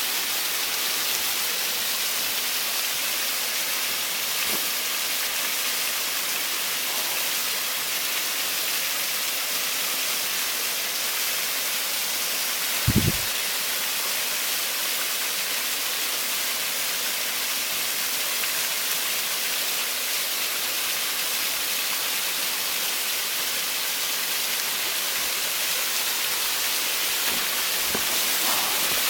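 Waterfall: water pouring and splashing in a steady, even rush. A single brief low thump about halfway through.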